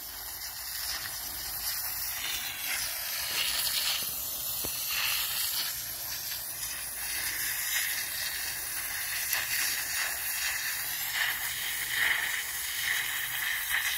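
Jet of water shooting from the end of a PVC pipe into sandy soil: a steady hiss with splashing that surges a little as the jet blasts the dirt away.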